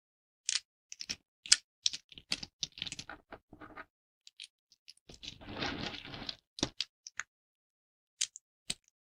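Thin dry soap plates being snapped by hand: a quick run of crisp cracks, then about five seconds in a longer crunchy crumbling as pieces break up, and a few scattered snaps near the end.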